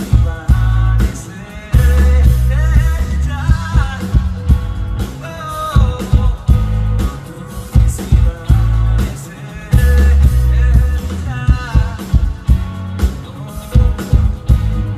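Live band music with a heavy bass and regular drum hits, under a male singer's sung melody.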